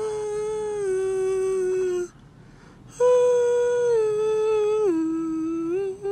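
A person humming a slow tune in long held notes. The first phrase holds one note, breaks off about two seconds in, and after a second's pause a second phrase starts higher and steps down, ending on a short note near the end.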